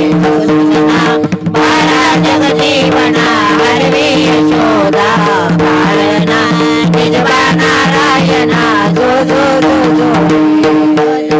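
Instrumental close of a Marathi devotional cradle song: tabla keeping an even rhythm under a steady held drone, with a wavering melody line over it.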